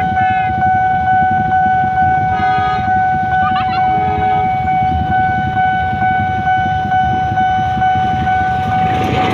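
Railway level-crossing warning alarm sounding one steady high tone over idling motorcycle traffic. A horn sounds briefly about two and a half seconds in. Near the end, the noise of a train reaching the crossing swells up.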